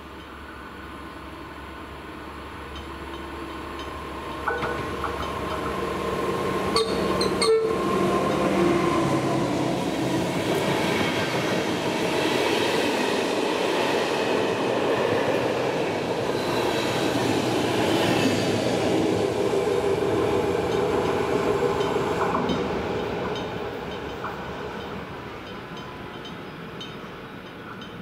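Passenger train hauled by an electric locomotive sounding its horn about four seconds in as it approaches, then passing close with loud wheel-on-rail rolling noise and clatter that builds, holds for about a dozen seconds and fades as the train recedes. Two sharp clicks sound shortly after the horn begins.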